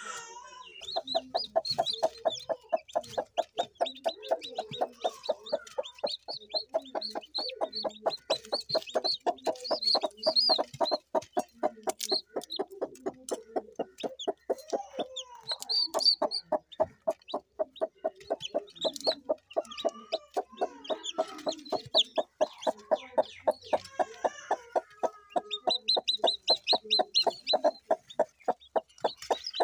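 Broody Aseel hen clucking in a long, even run of several clucks a second, with high peeping from her newly hatched chicks over the top.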